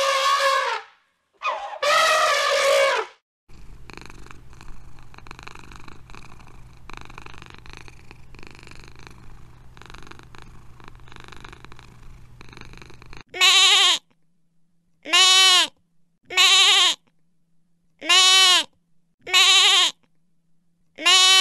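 Two loud elephant calls in the first three seconds. Then a domestic cat purring steadily for about ten seconds. Then a young goat bleating about six times, evenly spaced about a second and a half apart.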